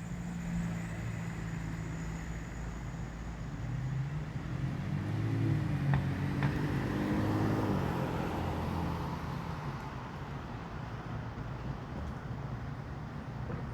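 Car engine running steadily, with a passing vehicle swelling and fading through the middle, louder between about four and nine seconds in.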